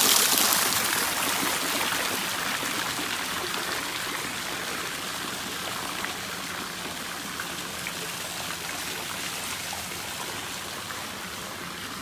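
Water falling from an upper-storey spout into a pool and splashing on its surface in a steady rush, loudest in the first second or so.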